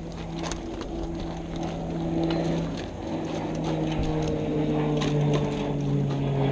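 An engine runs steadily, its pitch dropping a little about five seconds in, with scattered clicks from the ratchet straps being worked on the vehicle-stabilisation struts.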